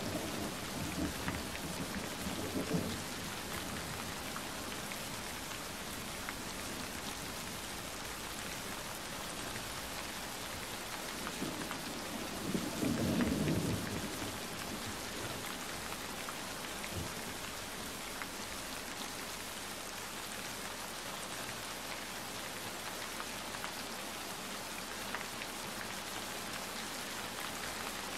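Thunderstorm: steady rain hiss throughout, with low thunder rumbles in the first few seconds and again about 13 seconds in.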